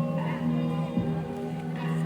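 Music: sustained low droning tones under higher held notes, with a soft low beat about a second in.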